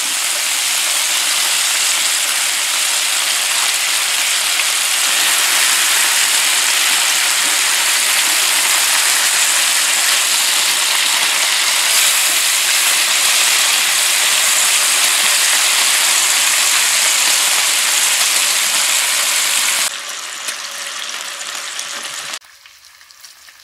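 Thick bacon frying in its own fat on an electric griddle set to 425°F: a steady, loud sizzle. It cuts off abruptly about twenty seconds in and is nearly gone by the end.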